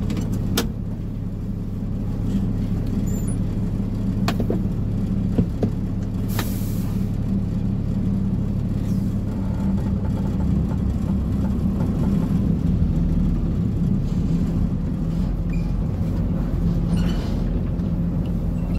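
Mahindra heavy truck's diesel engine running steadily, heard from inside the cab, with a few light clicks in the first six seconds and a short hiss about six seconds in.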